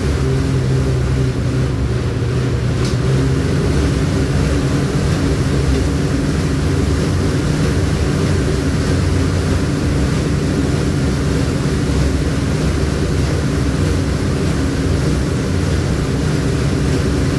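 Bodymax AB5.9 dual-action air bike's fan flywheel spinning fast under an all-out sprint: a loud, steady whirring drone from the fan blades.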